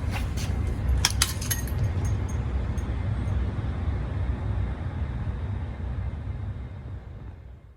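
Steady low rumbling background noise with a few sharp clicks in the first second and a half, fading out near the end.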